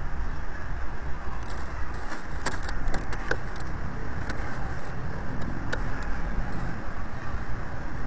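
Steady wind rumble on an outdoor microphone, with a cluster of small sharp clicks about two and a half to three and a half seconds in and one more near six seconds: peregrine chicks scrabbling on the gravel of the nest ledge.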